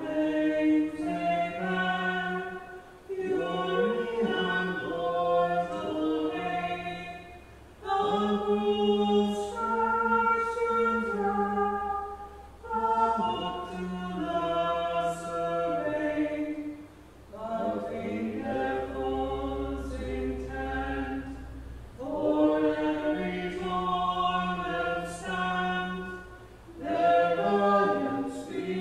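Church choir singing a cappella in the Vespers office, in phrases of a few seconds on long held notes, with short breaks for breath between them.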